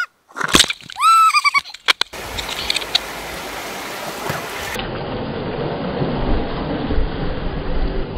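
Steady rush of river rapids from about two seconds in. Before that come a few short, loud whines that rise and fall in pitch, with sharp knocks.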